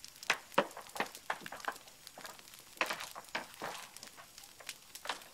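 Scattered light clicks and knocks at an irregular pace, a few a second, in a small room.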